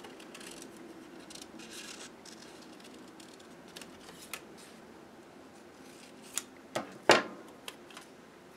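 Scissors snipping through folded paper in a run of short cuts. Near the end come a few sharp knocks as the scissors are set down on the table, the loudest with a brief ring.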